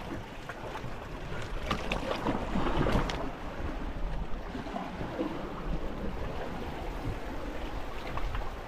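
Sea waves washing on a rocky shore, with wind buffeting the microphone. A few sharp clicks come over it, and the wash swells louder about three seconds in.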